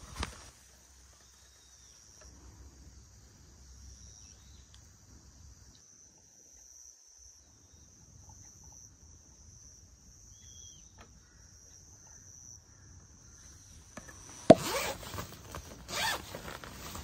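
Insects trilling in one steady high note, then, about 14 seconds in, a run of loud knocks and clatter.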